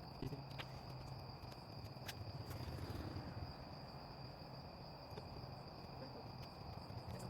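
Steady high-pitched chorus of night insects, crickets, over a low hum, with a few faint clicks about half a second and two seconds in.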